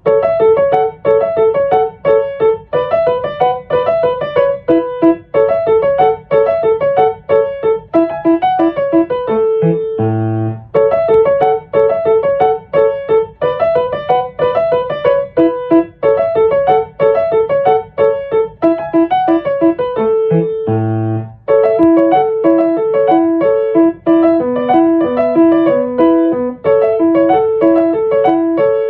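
Background music: a fast, repeating piano melody in phrases of about ten seconds, with a short pause twice.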